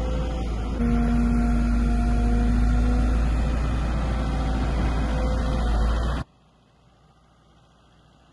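A machine's engine idling steadily, with a low, heavy undertone and a few held tones. About six seconds in it cuts off abruptly, leaving only a faint hum.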